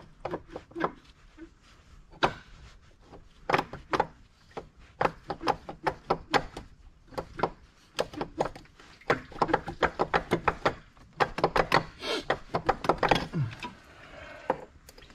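Rapid, irregular clicks and knocks of an E46 M3's water pump being wiggled and worked free by hand, knocking against the engine parts around it. The pump is held on by old RTV sealant, so it has to be rocked loose. The knocks come thickest in the second half.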